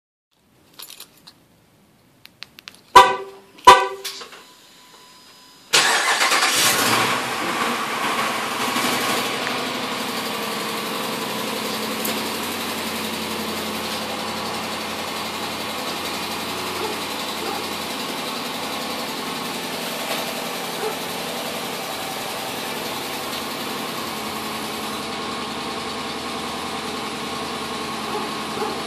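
Two short horn chirps from a 2011 Jeep Grand Cherokee, then its 5.7 L Hemi V8 starts from cold about six seconds in, runs loudly at first and settles to a steady idle. This is the cold-start ticking that fades after about 30 seconds, which the dealer traced to broken exhaust manifold bolts.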